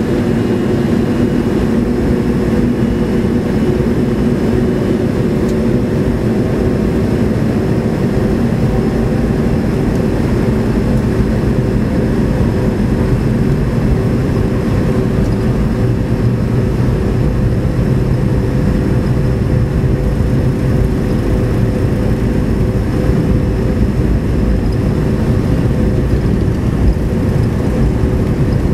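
Inside the cabin of an MD-80 on its takeoff roll: the rear-mounted Pratt & Whitney JT8D turbofans at takeoff power make a steady drone with several held tones, and a deep rumble of the run down the runway grows stronger about a third of the way in.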